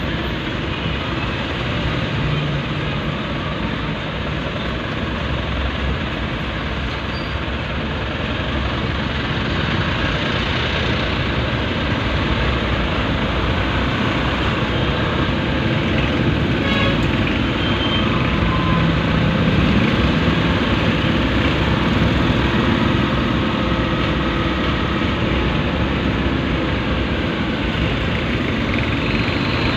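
Steady traffic noise of slow, congested city traffic heard from inside a car: engines running and tyres on the road, getting a little louder about a third of the way through.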